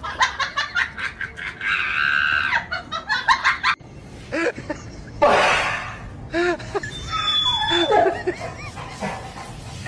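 People laughing in quick bursts, with a shriek.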